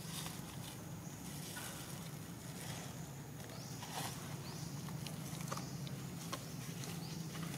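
Outdoor forest ambience: a steady low hum with scattered light clicks and rustles. From about halfway in, a high, short rising sound repeats roughly once a second.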